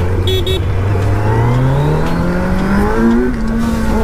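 Kawasaki Z900's inline-four engine accelerating hard, its note rising steadily for about three seconds and then levelling off near the end.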